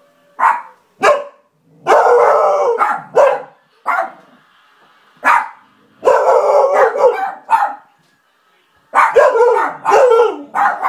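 A husky-type dog barking: short sharp barks mixed with drawn-out, wavering howl-barks about a second long.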